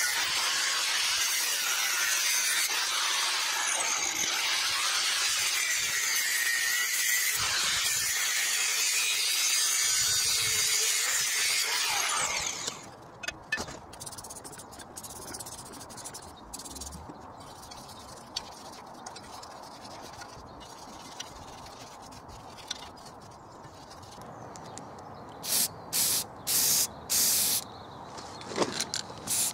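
Angle grinder cutting through steel bar, a loud, high-pitched grinding that stops suddenly about twelve seconds in. Near the end, several short hissing bursts of an aerosol spray can painting the steel brackets.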